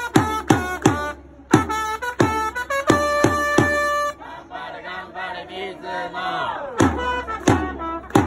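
Trumpet playing a baseball cheering-section player's cheer song over sharp beats about three a second. It holds one long note about three seconds in, then drops to a quieter stretch of crowd voices before the beats and trumpet come back near the end.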